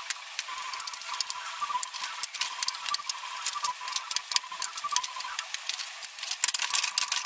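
Rapid clicking and clattering of abrasive grinder discs (flap discs and fibre discs) being handled, stacked and set down on a wooden tabletop. The sound is thin, with no low end.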